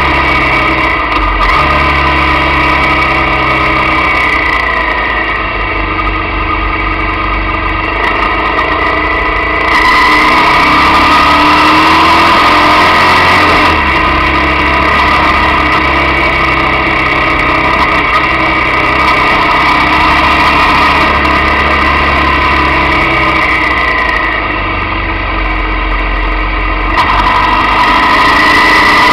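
Motorcycle engine running under way, heard from a camera mounted on the bike. It alternates between louder throttle-on stretches and quieter off-throttle stretches, about five to ten seconds in and again around twenty-five seconds in, with the pitch rising as it pulls away about ten seconds in and near the end.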